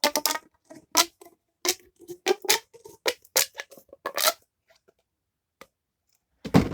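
Plastic pop tube fidget toy being stretched and squeezed, giving a rapid run of sharp pops and clicks from its ribbed sections for about four seconds. It goes quiet apart from a single click, then there is a loud rustle of handling near the end.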